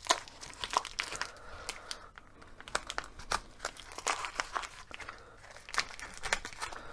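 Packaging being crinkled and torn open by hand as a small parcel is unwrapped: a run of irregular, sharp crackles.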